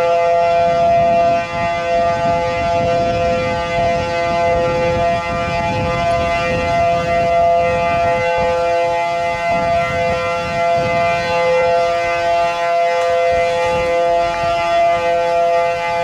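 Outdoor civil-defense air-raid siren, a World War II-era siren now used in the Pacific tsunami warning system, sounding a steady, loud tone as a tsunami warning. Wind noise rumbles on the microphone underneath.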